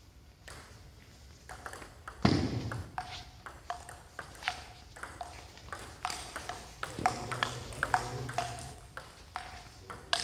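Table tennis rally: the ball clicking off the rubber-faced paddles and bouncing on the table in a quick, uneven back-and-forth, each hit a sharp pinging tick. A loud thud about two seconds in is the loudest sound.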